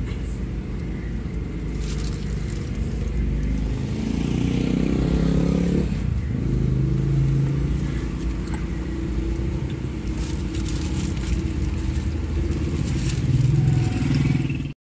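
Steady low rumble of a car's engine heard inside the cabin, with crinkling of a burger's paper wrapper near the end.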